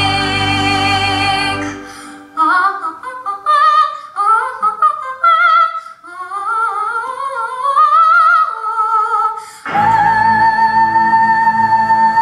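A teenage girl singing solo into a microphone. She holds a note over accompaniment, then about two seconds in the accompaniment drops out and she sings an unaccompanied run of sliding, ornamented phrases. Near the end the accompaniment comes back in under a long held high note.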